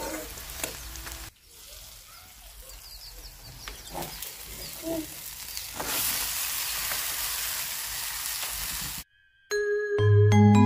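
Sliced onions sizzling in oil in an iron kadai, with a metal spatula scraping and stirring. About six seconds in, raw chicken pieces are tipped into the hot oil and set off a loud, even hiss of frying for about three seconds. It stops abruptly, and a short marimba-like jingle begins near the end.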